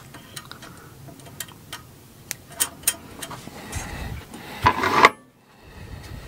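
Light metallic clicks and taps of small nuts and hardware being handled against an aluminum 3D-printer frame, with a louder clatter and rub about four and a half seconds in that stops abruptly.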